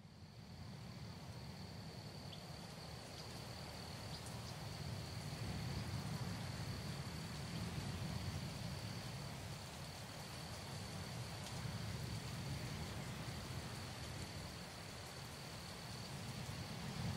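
Crickets trilling in one steady high-pitched note over a low rumble.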